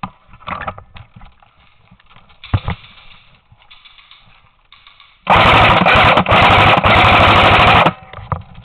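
Airsoft electric gun firing on full auto at close range: a loud, rapid rattle of shots in three bursts run almost together, starting about five seconds in and lasting about two and a half seconds. Faint knocks and clicks come before it.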